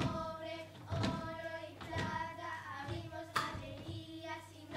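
A group of children singing a song with musical accompaniment: held notes in short phrases, with a sharp beat about once a second.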